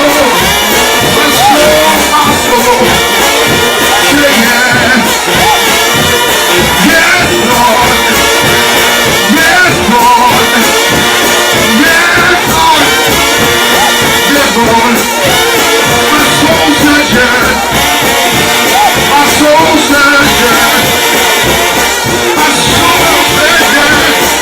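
Brass shout band led by trombones playing loud, driving gospel shout music, with voices singing along.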